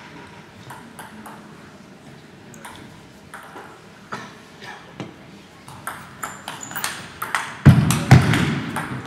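Celluloid table tennis ball clicking off bats and the table: scattered single clicks at first, then a quick rally whose hits come faster and louder from about halfway. A loud thud near the end is the loudest sound.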